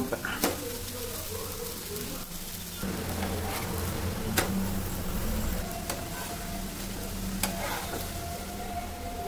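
Steady frying sizzle on the stove, with a metal spatula scraping and clicking a few times against a dosa tawa as the dosa is loosened and folded.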